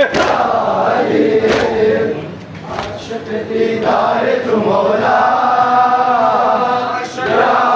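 Large crowd of men chanting together in unison. Sharp slaps cut through the chant every second or so.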